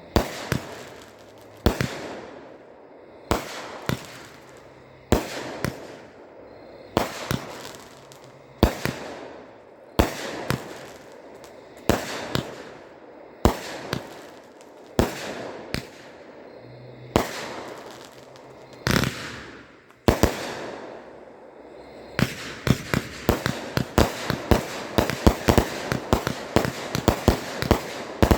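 A 66-shot consumer firework cake firing: single shots roughly every one and a half to two seconds, each bang trailed by a fading burst. About three quarters of the way in it moves to a rapid volley of many shots in quick succession.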